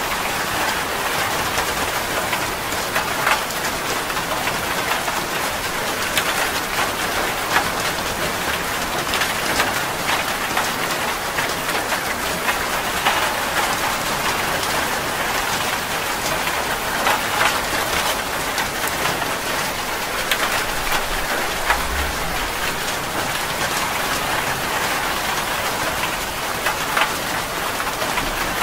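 Rain falling steadily: a dense, even hiss of many drops splashing, with individual drop ticks scattered through it.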